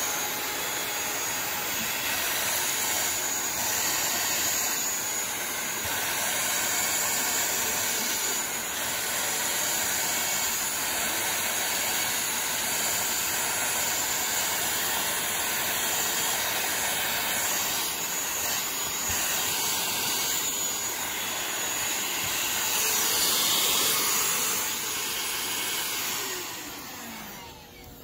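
Shark cordless handheld vacuum running steadily with a high whine and rushing air as it sucks up dust under a couch, dying away near the end.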